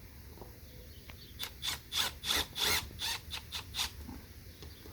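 A power drill driving a screw into a garden tractor tire to plug a puncture as a temporary fix. It runs in about eight short bursts over two and a half seconds, starting about a second and a half in.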